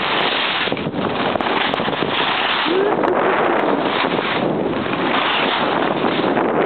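Steady, loud wind rush on the microphone of a camera carried by a skier moving downhill, with the hiss of skis sliding on packed snow mixed in.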